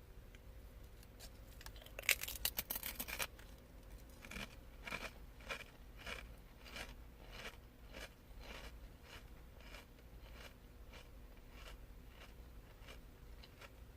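Munchos potato crisp bitten with a loud, dense crunch about two seconds in, then chewed with a regular run of crisp crunches, about two a second, growing fainter toward the end.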